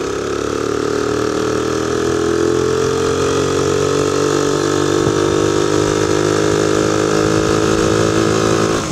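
Honda PC50 moped's small four-stroke single-cylinder engine running under throttle while riding, its pitch rising slowly over the first few seconds, then holding steady, and easing off near the end.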